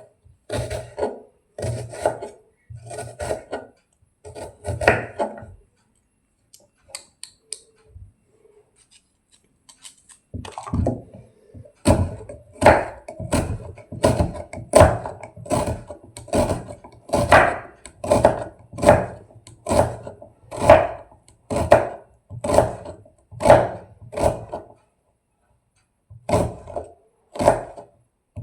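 A blunt kitchen knife chopping an onion on a cutting board, in slow, even strokes about one a second. The chopping pauses for a few seconds about five seconds in, and again briefly near the end.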